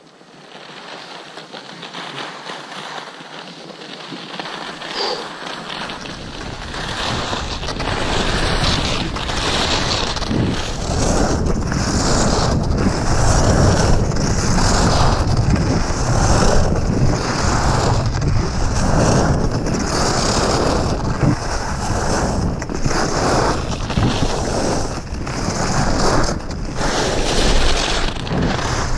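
Wind buffeting the action camera's microphone and Rossignol skis hissing and scraping over groomed snow on a fast descent. The sound grows louder over the first several seconds as speed builds, then swells and dips about once a second with the skier's turns.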